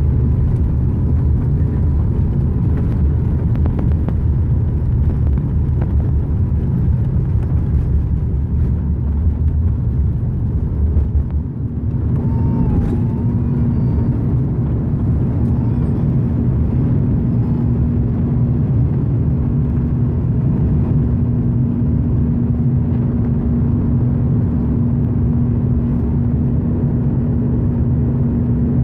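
Airbus A340 takeoff heard from inside the cabin: the engines at takeoff thrust over a heavy rumble of the wheels on the runway. About twelve seconds in the rumble drops away as the aircraft lifts off, leaving a steady engine drone with a constant hum through the climb.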